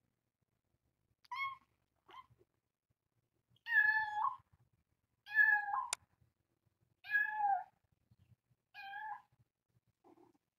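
Kitten meowing about six times in a row, roughly once a second. The middle calls are the longest and loudest, and a short, faint, lower call comes near the end.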